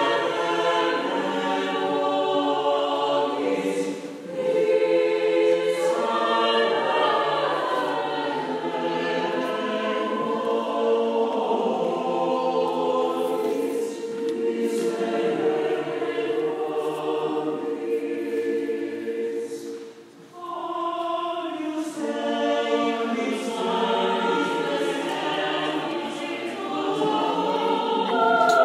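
Choir singing sacred choral music, with brief breaks between phrases about four seconds in and again around twenty seconds.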